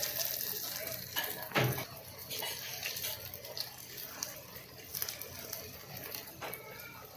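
Cornflake-coated bread pieces deep-frying in hot oil, a steady crackle of small pops and spits, with one sharp knock about one and a half seconds in.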